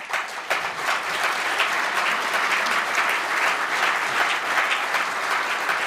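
Audience applauding: many hands clapping in a dense, steady patter that breaks out suddenly and holds at an even level.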